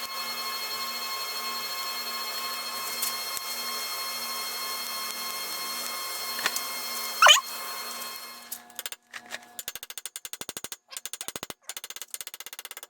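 TIG welding arc running with a steady high whine over a hiss, with a brief loud crackle about seven seconds in. After the arc stops, a fast train of clicks fills the last few seconds.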